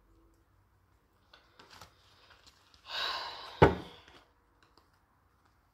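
A deck of tarot cards being handled: a few light clicks, then a rustle of cards about three seconds in, with one sharp knock, the loudest sound, as the deck is knocked on the table.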